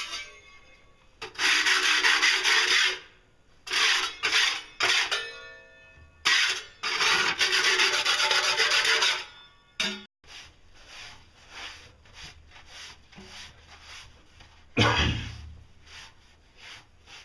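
Rough scraping and rubbing on a tiled mortar sink. There is a long stroke of about two seconds, a couple of short ones, a long stroke of about three seconds, and a short one near the end.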